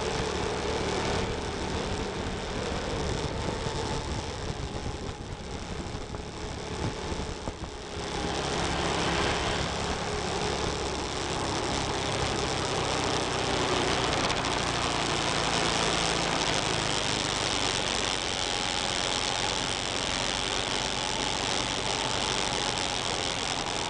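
Motorcycle engine running while riding at road speed, with a steady rush of wind and road noise. The sound drops back for a few seconds, then picks up again about eight seconds in.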